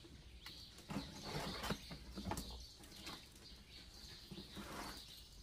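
Packing tape on a cardboard parcel box being slit open and the cardboard handled: a few short, scratchy rasps over a faint steady high-pitched background hum.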